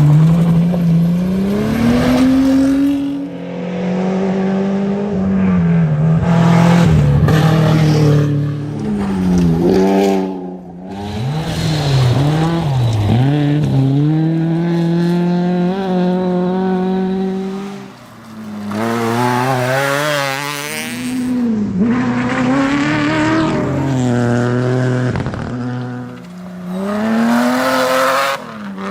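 Rally car engines revving hard, the pitch climbing and falling again and again through gear changes and lifts, with some tyre noise.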